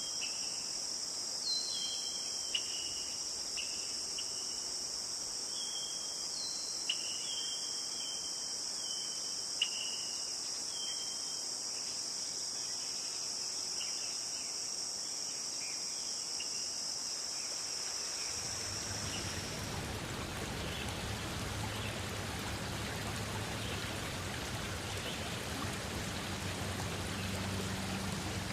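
Steady high-pitched chorus of crickets, with short repeated chirps over it. About two-thirds of the way through it cuts off and gives way to the steady rush of flowing water, like a stream or waterfall.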